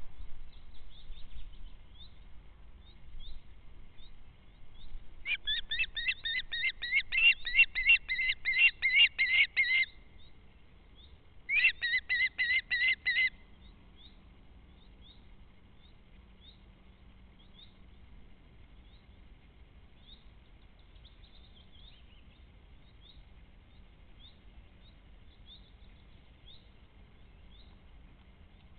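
A bird calling in two rapid series of sharp, high-pitched notes, the first lasting about five seconds and growing louder, the second shorter, about two seconds later. Faint short chirps repeat in the background.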